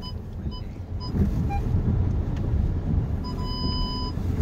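Volkswagen Tiguan cabin with the steady low rumble of the car moving slowly. A parking-sensor warning beeps about twice a second in the first second, then sounds one steady tone for about a second near the end, the sign of an obstacle very close to the car.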